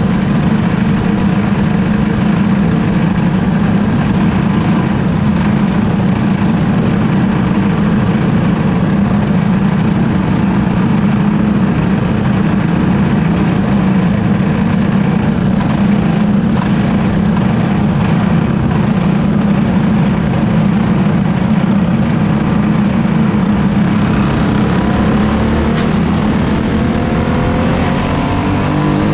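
Racing kart's engine heard from onboard at racing speed, holding a fairly steady pitch and rising near the end, with wind and chassis noise mixed in.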